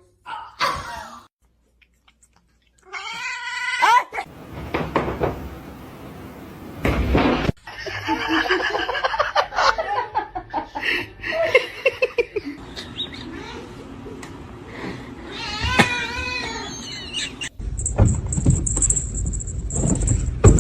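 Cats meowing and yowling, a series of drawn-out pitched calls that glide up and down. Near the end a steady noise with a high whine comes in.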